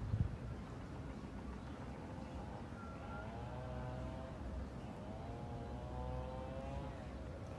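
A motor vehicle engine running, its pitch rising and falling from about three seconds in, over a steady low rumble. A short thump comes right at the start.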